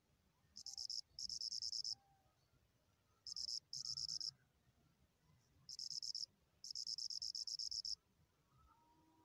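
A cricket trilling in short high-pitched bursts, mostly in pairs, six bursts in all with quiet gaps between them.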